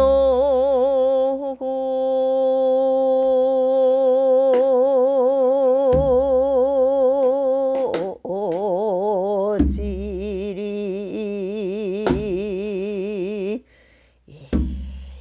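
A woman singing pyeongsijo, classical Korean sijo song, holding one long, steady note with a slow, gentle vibrato. About eight seconds in, the pitch drops and the vibrato grows wide; the voice breaks off briefly near the end and comes back in. A few low thumps, spaced several seconds apart, mark the slow beat.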